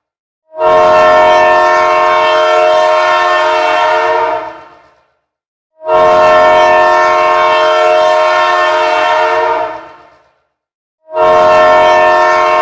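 Emergency alert alarm sounding a loud chord of steady tones in long blasts: two full blasts of about four seconds each and the start of a third, a pause of about a second between them, each blast fading out at its end.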